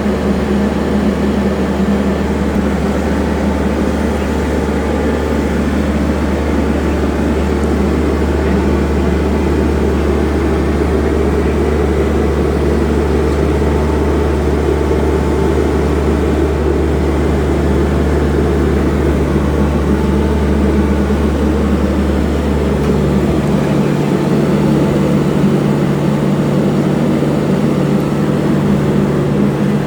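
CAT AP300 asphalt paver working, its CAT C3.3B diesel engine and paving machinery running with a steady loud drone. About three-quarters of the way through, the deepest part of the drone drops away, leaving a somewhat higher steady hum.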